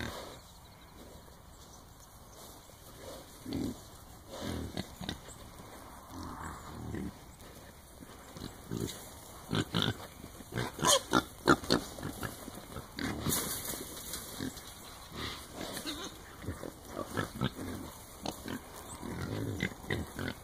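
Wild hogs grunting intermittently inside a corral trap. About halfway through comes a quick run of sharp knocks and clatters, the loudest sounds here.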